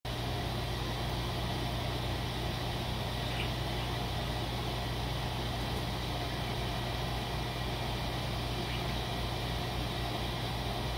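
Steady low mechanical hum of a running machine, unchanging throughout.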